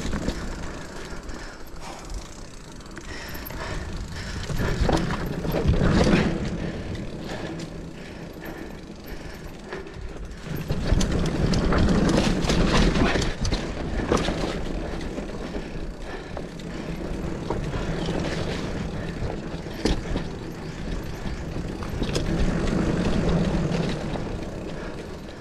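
Mountain bike being ridden along a dirt singletrack: tyres rolling on the trail and the bike rattling with sharp clicks over bumps, under wind rushing over the camera microphone that swells three times as the speed picks up.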